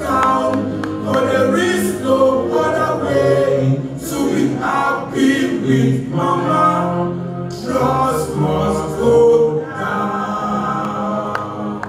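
A song: singing into a microphone over a backing track with a steady bass line.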